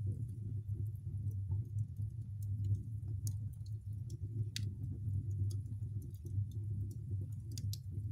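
Wood fire crackling, with irregular sharp pops over a steady low rumble; one louder pop comes about halfway through.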